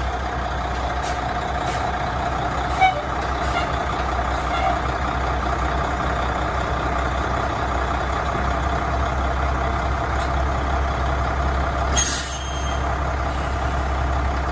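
Diesel engine of a 1993 Ford LS8000F dump truck idling steadily. There is a short sharp noise about three seconds in and a brief hissy burst near the end.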